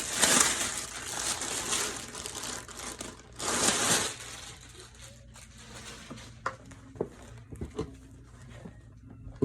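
Packaging crinkling and rustling as a tote bag is taken out of a shipping box, in two loud spells over the first four seconds, followed by a few light knocks.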